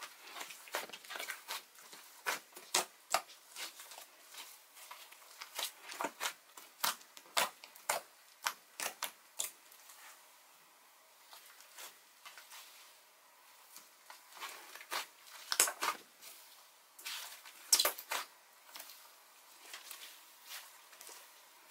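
Dough-textured clay slime being squished, pressed and stretched by hand, giving irregular soft crackles and little pops. They thin out for a few seconds near the middle, and the loudest pops come in the later part.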